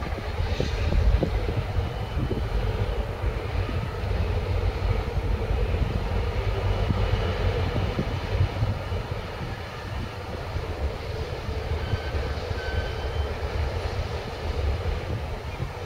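GM two-stroke diesel engines of a pair of NOHAB-type locomotives running at low power as they move slowly, a deep steady rumble with a constant hum.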